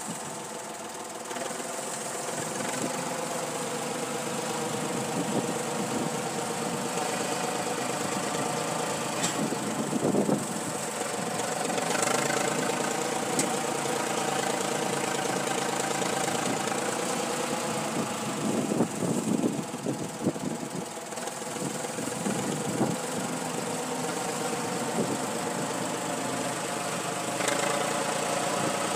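Deutz tractor's diesel engine running while it drags a tow-behind earth scoop through soil. The engine note shifts and gets rougher and louder around ten and nineteen seconds in, as the load changes.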